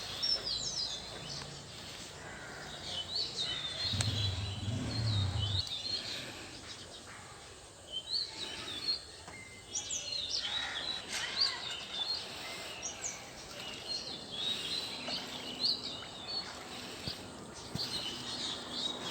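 Small birds chirping and calling over steady outdoor background noise, with many short, high, sliding chirps throughout. A low hum rises for a second or two about four seconds in.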